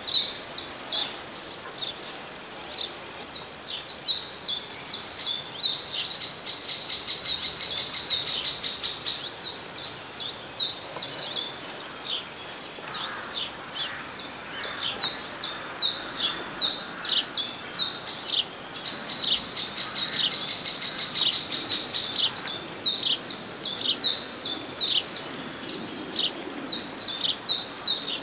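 Small songbirds chirping and twittering in a busy chorus of quick, high notes, with a buzzy trill now and then.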